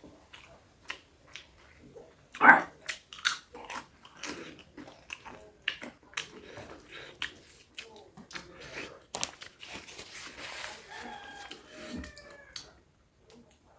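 Close-up eating sounds: wet chewing and biting with mouth clicks and crunches, the loudest crunch about two and a half seconds in. A few short high squeaks come near the end.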